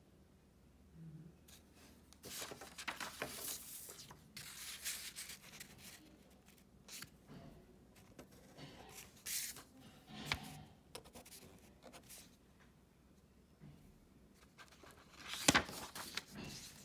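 Felt-tip pen strokes on a paper worksheet and the paper packet rustling as it is handled, in irregular bursts; the loudest rustle comes near the end as a page is turned.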